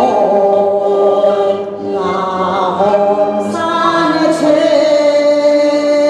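A woman singing a melody into a microphone, holding long notes with vibrato, over instrumental accompaniment. The singing begins right at the start.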